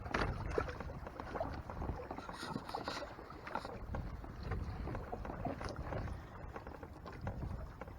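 Water sloshing and lapping against a kayak's hull, with irregular small knocks and splashes and wind buffeting the microphone.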